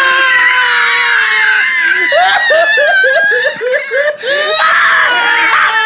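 A person shrieking for about two seconds, then laughing hysterically in quick bursts of about five a second, breaking into harsh, loud screaming laughter near the end.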